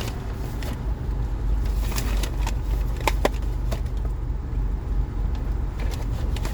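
Car engine running with a steady low rumble, heard from inside the cabin, with scattered short clicks and rustles as a takeout paper bag is handled.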